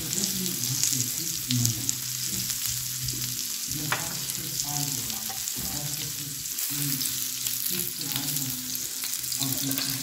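Steak pieces sizzling on the hot ridged plate of an electric table grill: a steady hiss with a light click about four seconds in.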